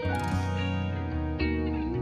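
Instrumental background music: notes struck at the start and again about one and a half seconds in, ringing on.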